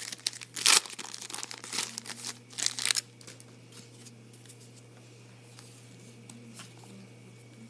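Foil wrapper of a trading-card pack being torn open and crinkled by hand for about three seconds, then only faint handling ticks.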